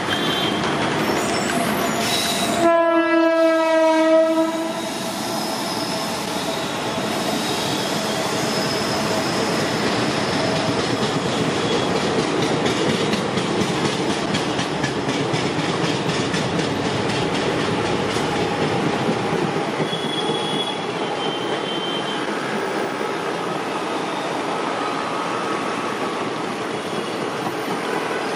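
A train horn gives one long blast about three seconds in. Then a passenger train's ICF coaches roll steadily past, with a continuous rumble and clatter of wheels on the rails.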